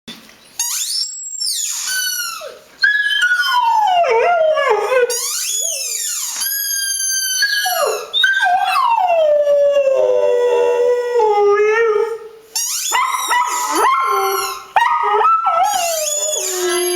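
A dog howling in a run of long, wavering calls that slide up and down in pitch, broken by a few short pauses.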